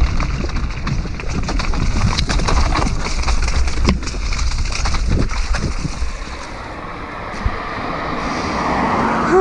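A mountain bike descends a rough, muddy trail, heard from a helmet-mounted GoPro: wind rushes steadily over the camera's microphone while the bike clatters with frequent sharp knocks and rattles. It eases off about two-thirds of the way through, then builds again and ends with a brief falling tone.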